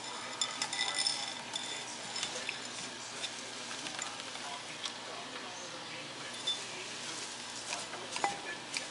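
Scattered clicks and taps against a hard bowl as a savannah monitor feeds on hard-boiled eggs, with a cluster of ringing clinks about a second in, over a steady hiss.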